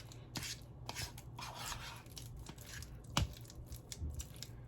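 A kitchen utensil scraping and mashing softened butter and cream cheese in a mixing bowl: soft, irregular scrapes with a light knock about three seconds in.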